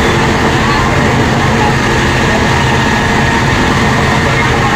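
A heavy engine running steadily, a constant low drone with a rushing noise over it.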